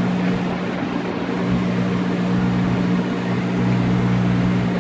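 John Deere 5083E tractor's diesel engine running steadily under field load, a constant low hum over a broad rumble.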